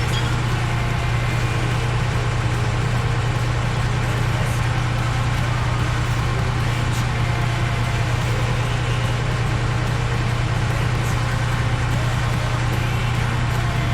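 Heavy-equipment diesel engine running steadily at a constant speed, a low even drone with no revving.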